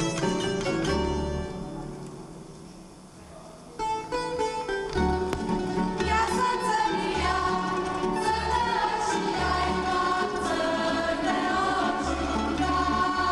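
Tamburica band playing a folk dance tune that dies away over the first few seconds. Just under four seconds in, the strings start again and a group of voices sings along with them.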